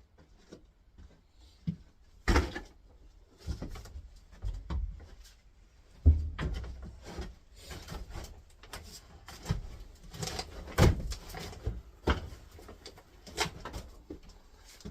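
Irregular knocks, clunks and scrapes of objects being handled and set down, a dozen or so separate hits spread unevenly, the loudest about two, six and eleven seconds in.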